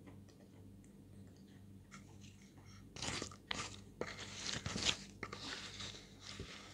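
A spoon scraping and stirring crumbly chalk paste in a glass bowl, a dense crunchy rasping that starts about three seconds in and lasts about two and a half seconds, after faint chewing clicks.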